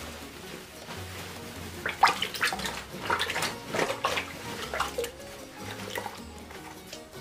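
Water being squeezed out of a muslin bag of wet cornstarch, splashing and trickling into a plastic bowl in a run of irregular bursts from about two seconds in, over background music with a steady bass pulse.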